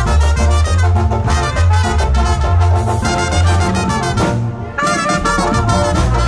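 Live band music: trumpet and saxophone playing a Latin dance tune over a heavy bass line. The band breaks off for a moment about four seconds in, then comes back in.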